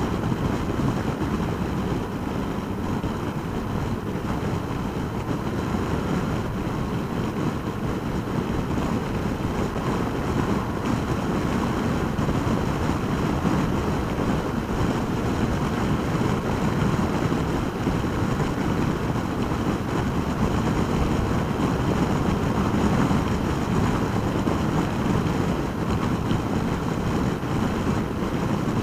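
Yamaha FJR1300's inline-four engine running at a steady cruise under wind rush, heard from a helmet-mounted camera whose wind-noise cancelling damps the buffeting. The sound is an even, unbroken mix, heaviest in the low range.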